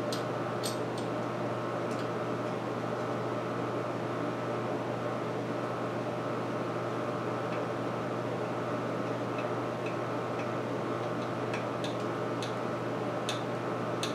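Steady mechanical hum, like a small fan or motor running in a small room, with a few faint clicks of hand tools working on a chainsaw body.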